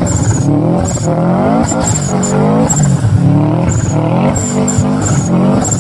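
Turbocharged car engine revved up and let off again and again, about once a second, with short high chirps from the turbo system as the throttle closes, typical of blow-off valve or compressor flutter.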